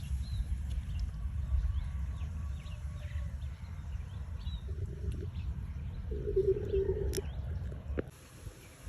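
Small birds chirping in short, scattered calls over a steady low rumble. Two brief steady tones sound a little past the middle. The rumble drops away abruptly near the end.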